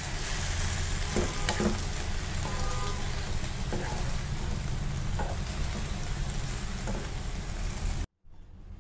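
Gongura (sorrel) leaves frying in oil in a non-stick pan, cooking down with no water added: a steady sizzle with the occasional scrape and knock of a spatula stirring them. The sound cuts off suddenly near the end.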